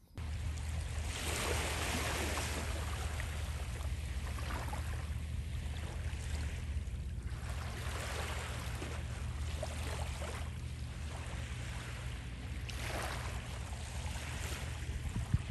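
Small waves washing up onto the beach, swelling and falling back every few seconds, over a steady low rumble of wind on the microphone.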